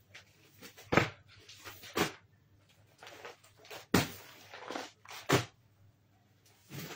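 Plastic-bagged clothing packets dropped one after another onto a pile: four sharp slaps of the bags, about a second or two apart, with plastic crinkling between them.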